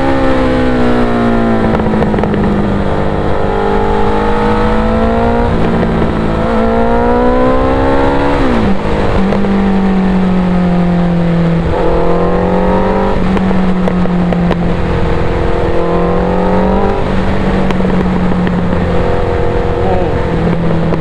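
Suzuki Hayabusa inline-four through a Racefit aftermarket exhaust, accelerating hard: the engine note climbs and drops back several times, with a sharp drop about nine seconds in. It then runs at a steadier pitch with short surges of throttle.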